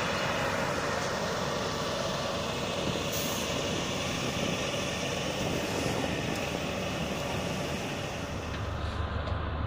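Steady noisy din of a heavy engine running. A deeper hum takes over near the end.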